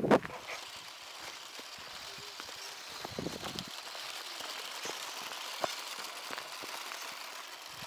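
Small electric RC buggy's motor and gears whining steadily as it drives, with faint scattered ticks.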